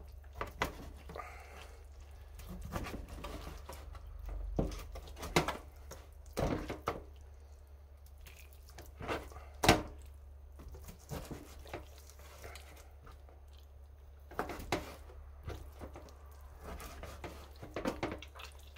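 Scattered knocks and taps from handling raw meat with a kitchen knife on a cutting board, the sharpest knock about ten seconds in, over a steady low hum.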